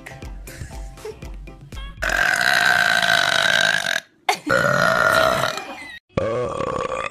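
A person letting out long, drawn-out burps, three in a row, each held at a steady pitch, after a couple of seconds of music with a beat.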